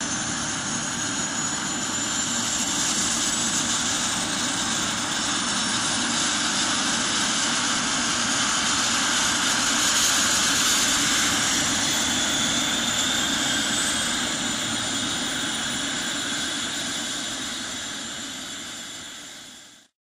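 Eurocopter EC120 Colibri helicopter turbine running: a steady rushing whine with high whistling tones that slowly glide in pitch, fading out near the end.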